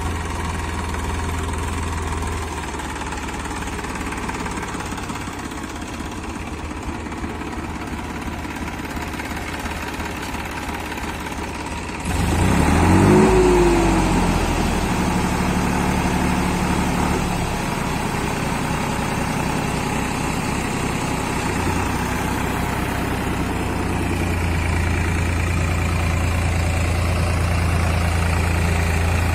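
Massey Ferguson 7250 DI tractor's diesel engine running steadily while it pulls a tine cultivator through the soil. About twelve seconds in the engine revs up sharply, then holds at a higher, steady speed.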